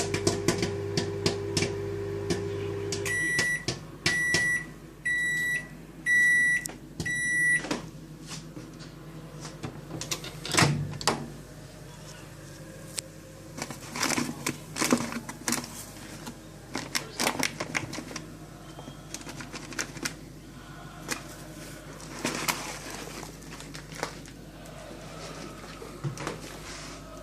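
Microwave oven running with a steady hum while popcorn kernels pop, stopping about three seconds in, followed by five high beeps about a second apart signalling the end of the cycle. After that come scattered clicks, knocks and rustling.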